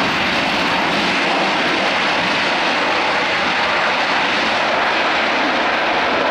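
Jet engines of an Airbus A340-600, a four-engine airliner, running at high power as it rolls along the runway: a loud, steady jet noise.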